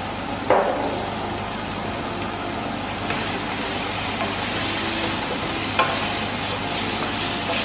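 Diced tomato, onion and garlic sizzling in hot oil in a stainless steel frying pan while a wooden spatula stirs them. There are two brief knocks of the spatula on the pan, one about half a second in and one about six seconds in.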